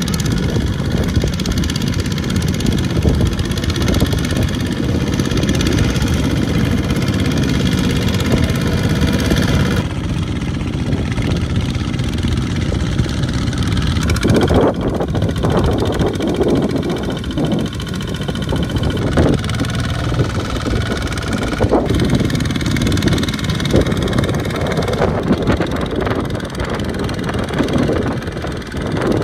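Two-wheel walking tractors' small single-cylinder diesel engines running under load, hauling carts of rice sacks through deep mud. The engine sound changes abruptly three times.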